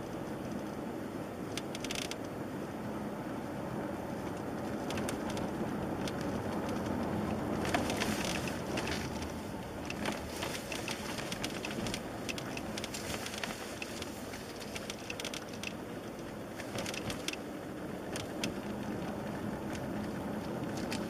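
Kia Optima's front dashboard panel creaking and squeaking in many short, irregular ticks, over the steady road and engine noise of the moving car's cabin.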